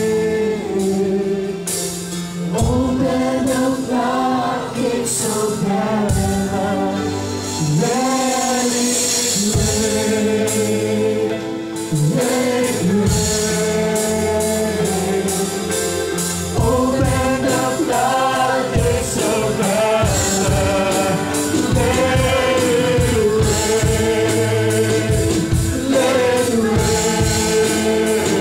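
Live worship song: a group singing a slow melody over electric guitar, bass guitar and keyboard. About twelve seconds in, a steady beat comes in.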